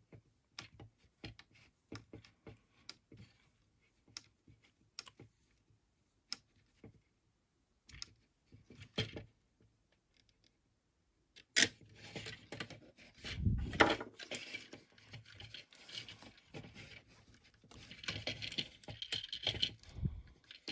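Small screwdriver and plastic action-figure parts being handled while a tiny screw is driven in: scattered light clicks and taps at first, then busier scraping and clicking with a louder knock or two just past halfway.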